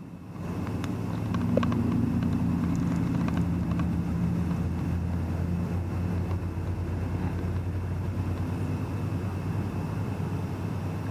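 An engine droning steadily, swelling over the first two seconds and then holding.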